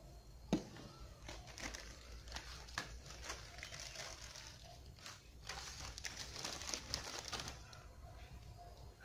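Crinkling and rustling of dressing materials, gauze and wrappers, being handled, with one sharp click about half a second in.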